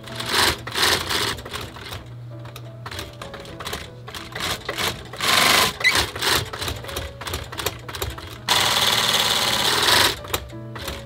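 Cylinder-arm leather sewing machine with a knurled roller foot stitching thick boot leather in short stop-start bursts, with its longest run of about a second and a half near the end.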